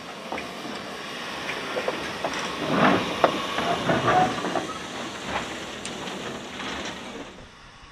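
1874 Beyer, Peacock 2-4-0T steam tank locomotive No. 4 Loch moving slowly past close by, with hissing steam and irregular metallic clicks and clanks, loudest as it passes. The sound dies away near the end.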